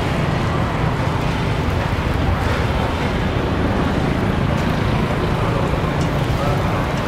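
Steady street traffic noise: a dense, even low rumble of engines.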